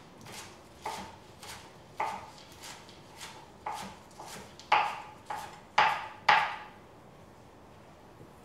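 Kitchen knife chopping kale leaves on a plastic cutting board: about a dozen sharp knocks, roughly two a second, the loudest near the middle, stopping a couple of seconds before the end.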